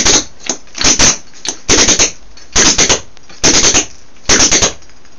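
Tap shoes' metal taps striking a wooden floor in quick clusters of three or four sharp clicks, six times at a steady pace of about one a second: repeated tap ripples, each finishing with a heel beat.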